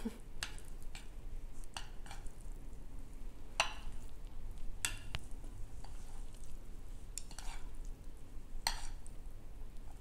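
Wooden chopsticks stirring and lifting sauce-coated instant noodles on a plate: soft wet squishing with scattered sharp clicks of the chopsticks, about ten in all.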